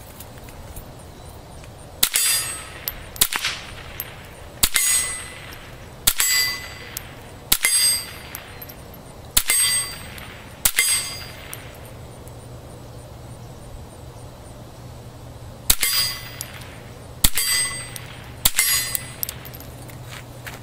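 .22 pistol shots through an oil-filter suppressor, each a muffled crack, fired at a steel gong. Nine of the shots are followed by the gong ringing with a bright clang, and one miss is not. The shots come every second or two, with a pause of about five seconds midway.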